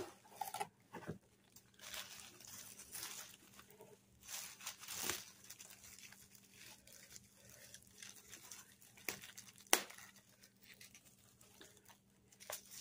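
Bubble wrap crinkling and rustling in irregular bursts as it is pulled out of a cardboard box and handled. Two sharp clicks come about three-quarters of the way through, the second the loudest sound.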